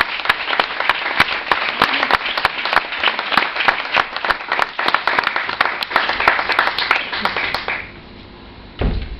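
Audience applauding, dense clapping that dies away about eight seconds in. A single low thump comes near the end.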